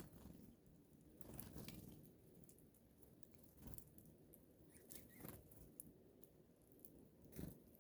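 Faint, scattered taps and crackles of seed being pecked and cracked open at a bird feeder, a handful of small clicks with the loudest near the end.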